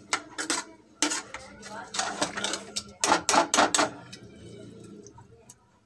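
Metal ladle stirring cooked greens and lentils in a metal pressure cooker, clattering and scraping against the pot in several quick bursts, then quieter stirring over the last couple of seconds.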